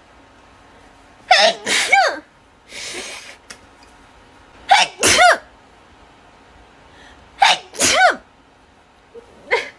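A woman sneezing three times, about three seconds apart, each a quick catch of breath and then a loud voiced burst that falls in pitch. A softer breathy noise follows the first sneeze, and a shorter, fainter sound comes near the end.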